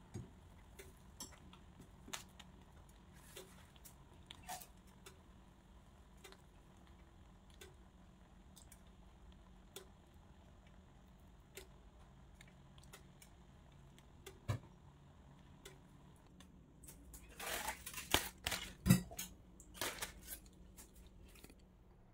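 A metal spoon knocking and scraping against a steel cooking pot, with a cluster of louder clinks and clatters a few seconds before the end. Under it runs a faint steady low hum with light ticks about once a second.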